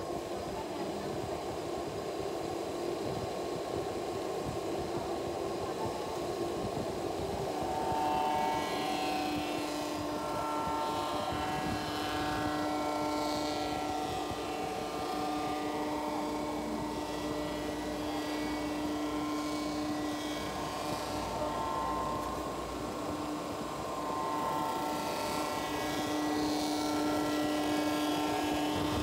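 Cylinder head resurfacing machine running, its rotating cutter skimming the deck face of a cylinder head as the table feeds it through. A steady machine drone with a held hum, a little louder about eight seconds in and again near the end.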